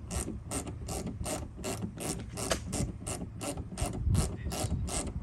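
Hand ratchet clicking in a steady rhythm, about three clicks a second, as a bolt is backed out during grille removal. The clicking stops just after the end.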